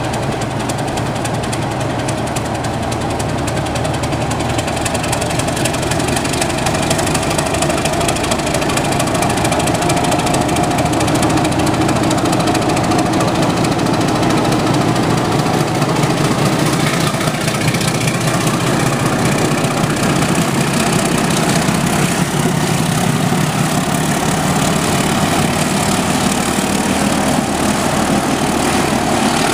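Pair of ALCo-design YDM4 diesel-electric locomotives pulling a passenger train away under load, their diesel engines growing louder over the first ten seconds or so as the locomotives come past, then running on steadily.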